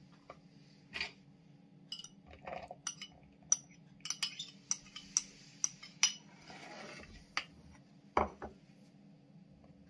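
Metal spoon scraping diced chicken out of a small glass bowl into a plastic mixing bowl: a string of sharp, irregular clinks of spoon on glass, with a short scrape a little after the middle.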